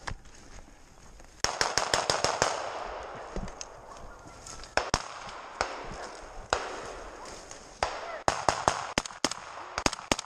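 Rifle gunfire from several rifles: sharp single shots, a quick cluster about a second and a half in, scattered shots through the middle, and a dense string of shots near the end.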